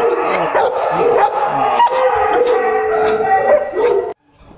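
Pit bull–type dog howling in a shelter kennel: a long, wavering, high cry. The sound cuts off suddenly near the end.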